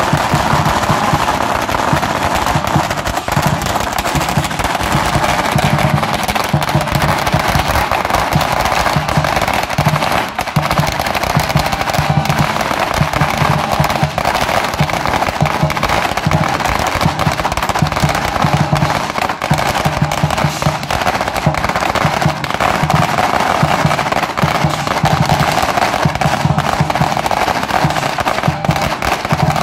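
Strings of firecrackers crackling continuously, over the steady beat of a large lion-dance drum and the clash of cymbals.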